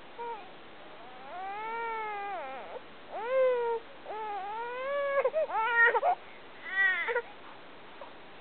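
Baby crying on its tummy: a run of about five drawn-out cries, each rising and then falling in pitch, the first one long and the later ones shorter and broken up.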